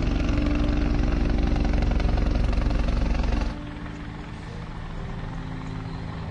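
Loud, steady helicopter rotor and engine noise over background music. It cuts off suddenly about three and a half seconds in, leaving the music alone.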